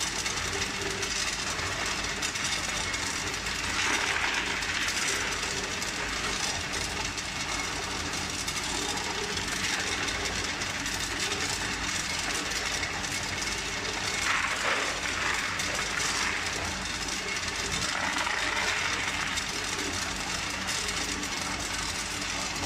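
Tube ice tumbling out of a tube ice machine's outlet chute and clattering into a plastic tub during the harvest, in several louder surges, over the steady hum of the running machine.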